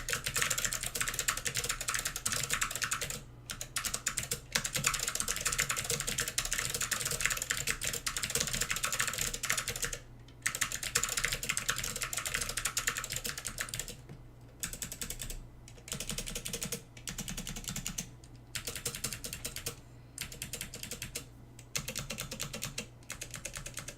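Fast typing on an Apple IIc keyboard with clicky SKCM Amber Alps switches, a dense clatter of keystrokes. In the second half it breaks into short bursts of keystrokes with brief pauses between them.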